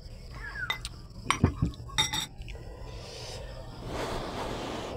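A metal spoon and dishes clinking: several sharp clinks in the first half, a couple of them ringing briefly like metal on glass. Then comes a soft steady noise for the last two seconds or so.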